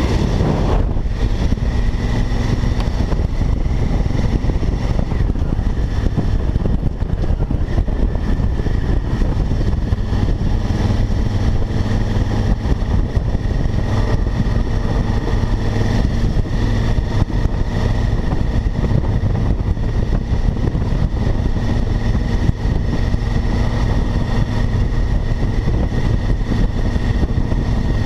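Honda Africa Twin motorcycle engine running steadily while riding along a dirt road, heard from a helmet chin-mounted camera.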